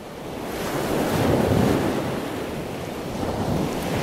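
Ocean surf: waves breaking and washing up a beach, a steady rushing that builds over the first second and swells again near the end.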